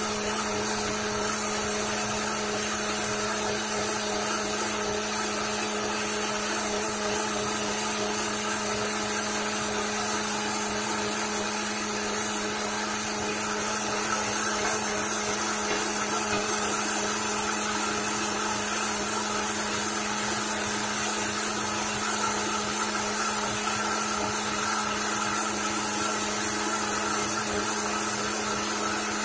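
Vitamix blender motor running steadily, churning a green smoothie that is already blended to a smooth liquid: an even hum under a loud rushing whir that holds the same pitch throughout.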